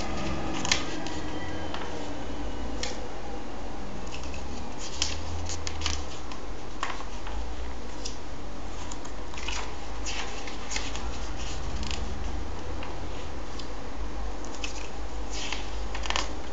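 Glossy comic book pages being turned by hand: repeated short paper flicks and rustles, over a steady low hum.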